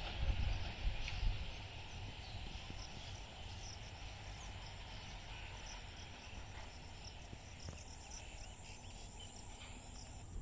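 Low rumble of a just-passed EMU local train fading away over the first couple of seconds, leaving faint steady outdoor ambience with a high, thin chirping of insects.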